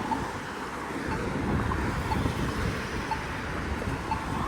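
Street traffic running steadily with wind on the microphone, and a Polara EZ Communicator crosswalk push button's locator tone sounding a short tick about twice a second.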